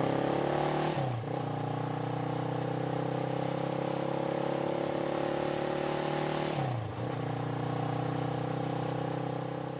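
Motor vehicle engine accelerating through the gears. Its pitch climbs steadily, dips as it shifts up about a second in and again near seven seconds, then climbs again.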